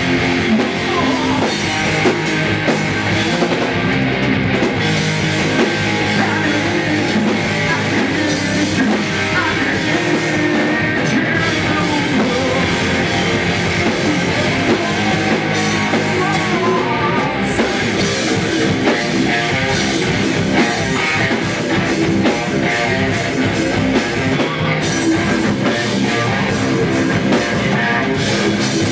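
Rock band playing with electric guitars and a drum kit.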